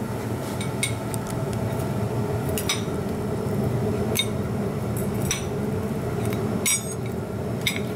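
A metal pizza-cutter wheel and tongs clink and scrape against a ceramic plate while slicing grilled paneer, about six sharp clinks. A steady low kitchen hum runs underneath.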